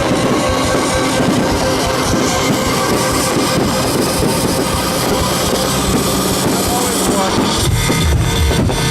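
Loud music with drums and guitar; a heavy pulsing beat comes in near the end.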